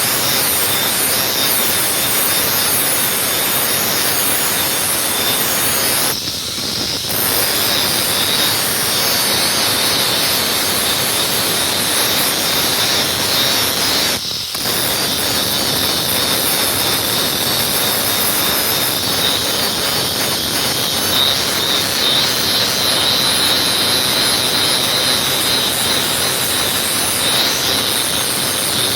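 Knife blade being ground on a spinning sharpening wheel: a steady, high grinding hiss that dips briefly twice, about six and fourteen seconds in.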